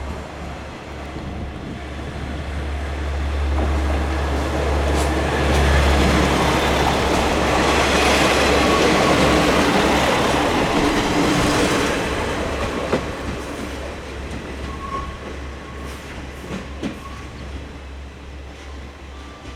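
Diesel railcar passing over a level crossing: its engine and wheels grow louder to a peak around the middle, then fade away, with a few sharp wheel clacks over the rail joints near the end.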